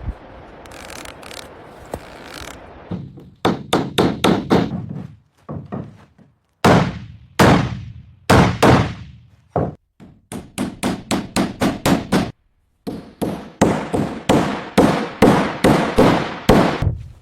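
Repeated hammer strikes in quick irregular runs, each blow sharp and ringing out briefly, with short pauses between the runs.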